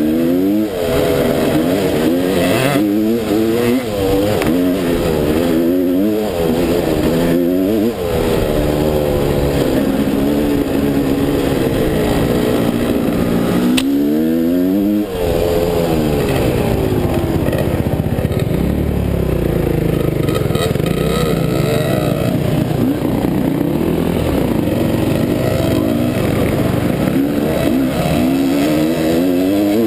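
Dirt bike engine close by, revving up and easing off again and again with the throttle, with other dirt bikes running ahead. One long, strong rev climbs about halfway through.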